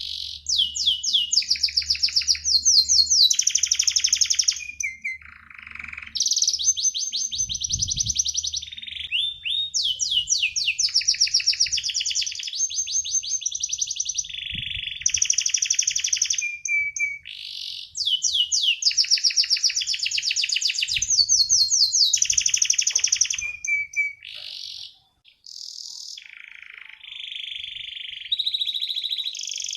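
Domestic canary singing a long, nearly unbroken song of fast trills and rolling phrases, one run after another, high-pitched, with a short break late on.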